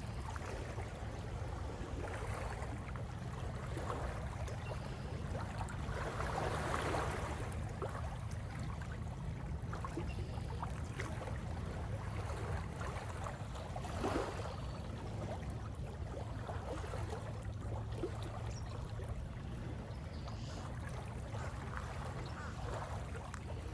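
Small lake waves lapping and splashing irregularly over a steady low rumble, with a louder splash about seven seconds in and another about fourteen seconds in.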